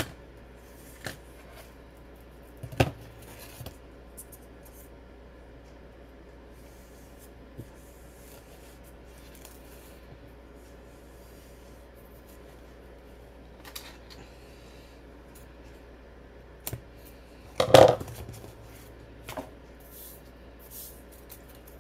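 Sparse small handling sounds of paper-crafting with foam tape and scissors: occasional light clicks and rustles, with a louder short clatter about three-quarters of the way through, over a faint steady hum.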